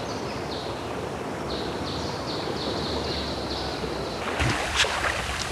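Steady outdoor noise at a trout rearing pond, with a bird chirping faintly over and over. A few sharp splashes come near the end as fish snatch floating feed pellets at the surface.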